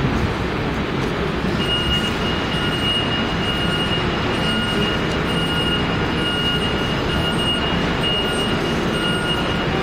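Mercedes-Benz Citaro O530K city bus's diesel engine running as the bus drives off slowly across a hall, with a thin high tone that sounds steadily with short gaps from about two seconds in.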